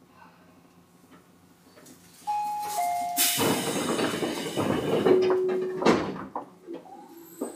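Door chime of a Tobu 9000-series commuter train sounding two descending notes. A loud rush of air follows as the sliding passenger doors move, ending in a knock.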